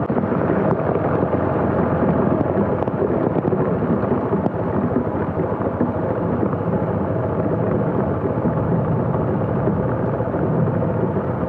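Steady rushing noise of wind and heavy rain on the camera microphone of a moving motorcycle riding through a downpour, with the bike's small engine running faintly underneath.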